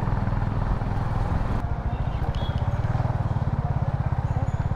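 Honda CB350RS's single-cylinder engine running steadily under way, with wind noise rushing past.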